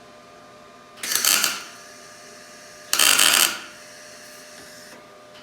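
Wire-feed (MIG) welder arcing in two short crackling bursts, each under a second, about a second and a half apart: tack welds being laid on the differential gears to lock the diff.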